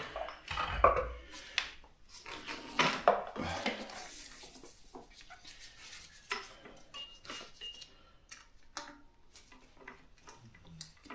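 Tubeless Continental Grand Prix 5000 road tyre being inflated on its rim, with scattered sharp clicks and pops as the tyre bead seats onto the rim.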